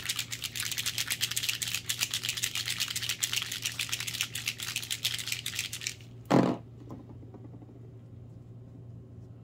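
Bottles of Airtex airbrush gel paint being shaken hard, a fast steady rattling for about six seconds, then a single thump a little past six seconds.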